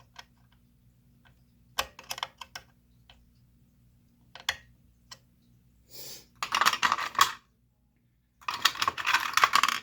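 Small metal clicks and taps as a screwdriver works at the cover screws of a sewing machine. Two longer rattling, scraping passages follow, one about six and a half seconds in and one near the end.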